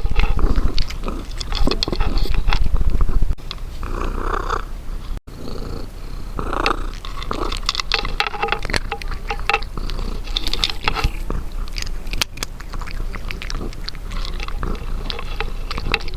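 Domestic cat eating, with a quick run of wet chewing clicks and smacks, over a low purr that is strongest for the first three seconds.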